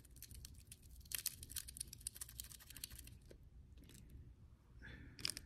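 Faint crinkling and tapping of a small drink-glitter packet being shaken out over a glass: a quick run of light crackles and clicks over the first few seconds, thinning out after.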